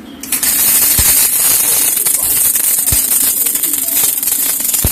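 CO2 gas-shielded (MIG) welding arc from an NBC-500A IGBT welder, crackling and sizzling steadily after striking a moment in. A few dull thumps sound within it.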